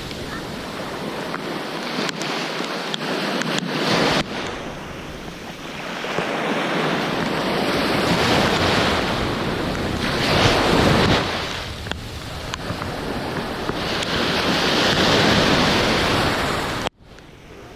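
Ocean surf breaking and washing up the beach, swelling and fading every few seconds, with wind rumbling on the microphone. The sound drops away suddenly near the end.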